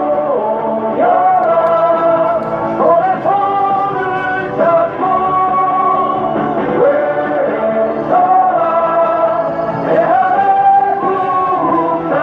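Music: a song with a melody of long held sung notes, each a second or two, sliding from one to the next.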